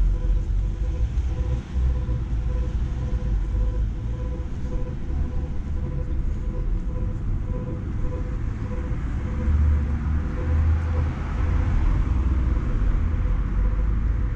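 City street traffic over a constant low rumble. A passing vehicle swells up about nine seconds in and fades near the end. A faint steady whine runs underneath.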